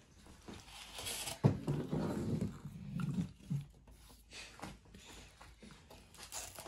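Short low grunting vocal sounds, mostly in the first half, with a few light knocks and rustles of paper plates being handled.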